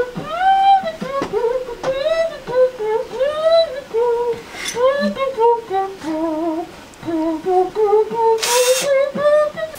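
A man blowing a wavering tune of gliding notes into the aluminium pipe of a turbo intercooler, using the pipe and core as a makeshift horn. A short hiss comes near the end.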